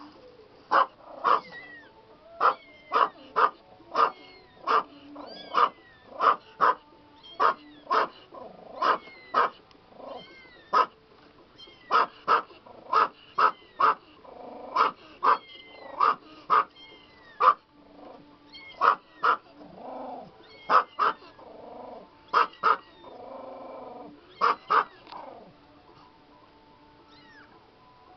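Young kittens mewing: a long run of short, sharp, high-pitched cries, often two close together, about one or two a second, that stops near the end.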